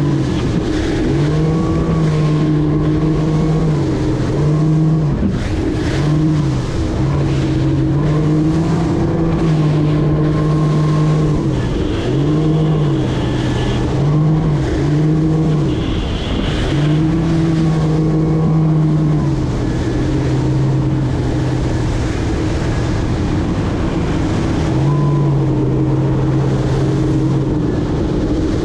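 200 hp Mercury outboard running a Cobia 237 center-console boat under way. The engine note repeatedly rises and drops back over a steady rushing noise.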